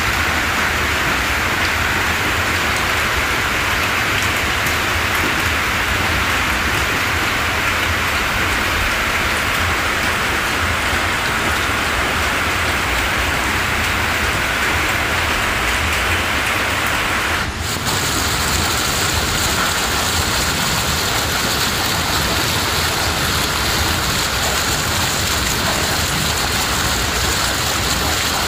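Steady downpour of rain falling onto flooded ground. The sound drops out for a moment about two-thirds of the way through and comes back slightly hissier.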